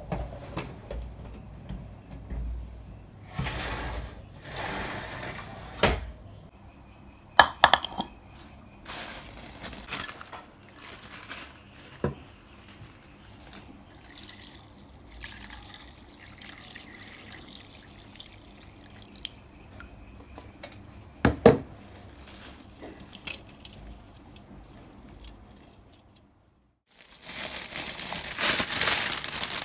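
Kitchen sounds: water running and dripping, with dishes and utensils knocking now and then. Near the end a louder crinkling rustle starts.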